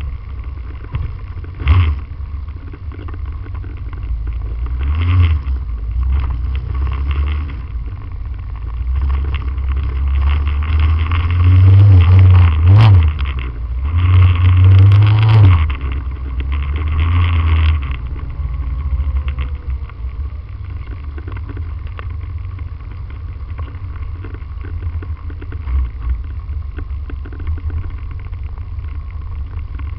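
Motorcycle engine and road rumble heard from a camera mounted on the bike, riding along in a group. Around the middle it gets louder, with the engine note rising and falling as it accelerates and shifts, then it settles to a quieter steady run for the last third.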